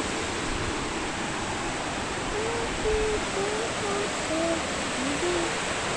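Steady rush of water over wide, rocky creek rapids. From about two seconds in, a voice hums a short tune of low notes over it.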